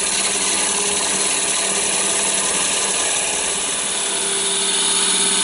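Wood lathe running while a turning tool cuts a spinning log blank down to round: a steady shaving noise from the tool at the wood, over the steady hum of the lathe motor.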